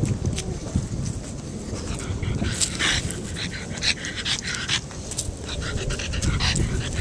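Pug panting close to the microphone of a camera it is carrying, in irregular breathy puffs, over a low rumble and rustle as it moves through leafy grass.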